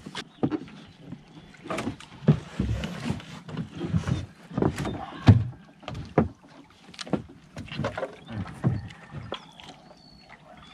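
Paddles stroking through the water beside a small outrigger canoe, with irregular knocks and splashes every half second to a second as the canoe is paddled along.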